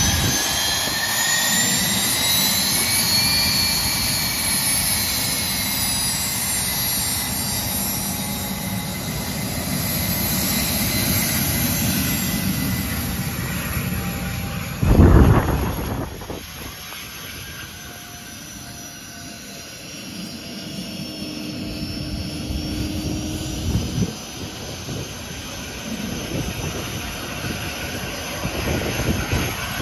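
A Learjet 45's twin rear-mounted Honeywell TFE731 turbofans whine at taxi power, the whine rising in pitch over the first few seconds and then holding steady. About fifteen seconds in, a brief loud rush of air buffets the microphone as the jet's exhaust swings toward it, and then the engines grow quieter as the jet moves away.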